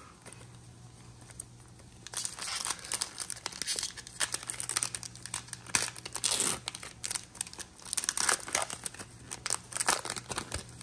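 Pokémon booster pack's foil wrapper crinkling and tearing as it is opened by hand, starting about two seconds in and running as a continuous crackle.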